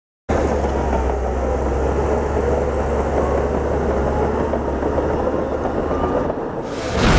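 Bulldozer's diesel engine running under load with clanking track noise, cutting in suddenly; about six seconds in it dips briefly, then a louder surge of noise rises at the end.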